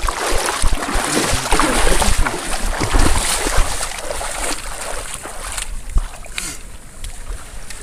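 Water splashing and sloshing in a shallow creek, busiest in the first few seconds, then easing off.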